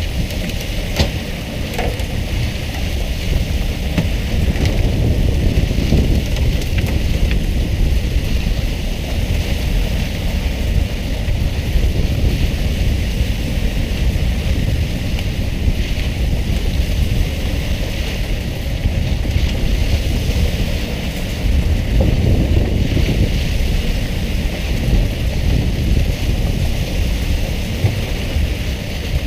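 Water jets sprayed from the side of a pole-and-line tuna boat hissing onto the sea like rain, over a steady low rumble of wind and the boat's engine.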